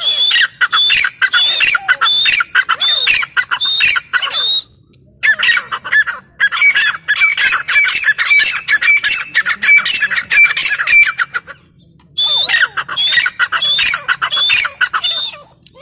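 Grey francolin (teetar) calling: loud, fast runs of harsh, repeated notes in three bouts, breaking off briefly about four and a half seconds in and again near twelve seconds.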